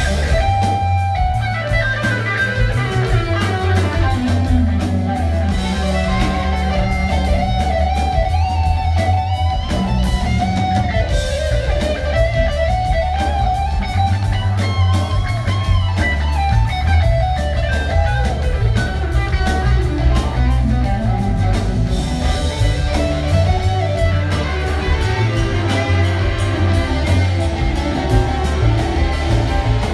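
Live rock band playing, with an electric guitar lead bending and sliding notes over bass and drums.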